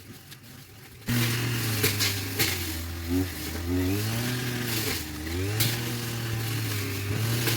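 A small engine starts up about a second in and runs on, its pitch rising and falling several times, with a few sharp clicks.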